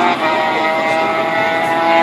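Vintage racing motorcycle engines running hard at high revs, a steady high engine note with a short break in it about a quarter second in.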